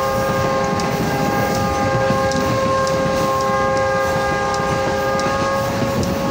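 Passenger train's locomotive horn sounding one long, steady multi-note blast that cuts off near the end, over the rumble of the moving train heard from inside a coach.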